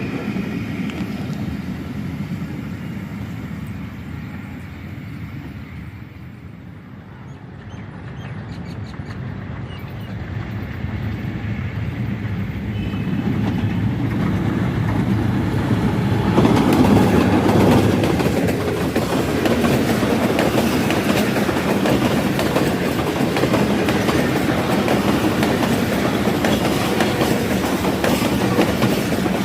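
Pakistan Railways passenger train running past on the tracks, its wheels clattering over the rail joints. The sound dies down about a quarter of the way in, then builds again and is loudest for the second half as train cars pass close by.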